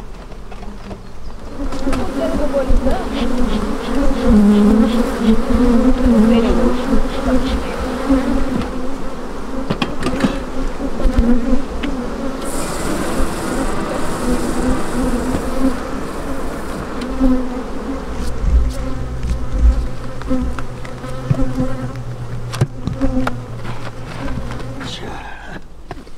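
Honeybees buzzing in large numbers around open hives: a dense, wavering drone, with scattered knocks and clicks of wooden hive frames and boxes being handled. A steady low hum joins in for several seconds in the second half.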